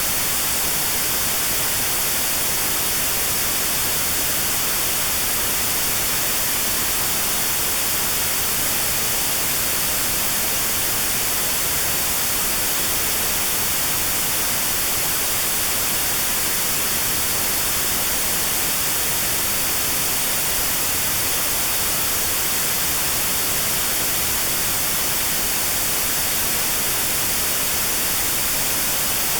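Steady white noise with a narrow band around 4 kHz cut out: notched sound therapy for tinnitus at that pitch. The hiss is even and unchanging.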